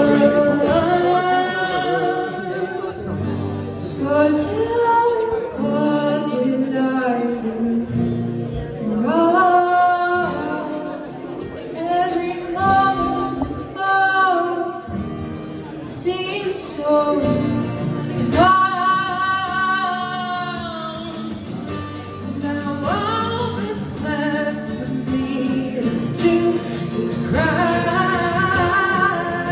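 Live song: a woman's and a man's voices singing over acoustic guitar.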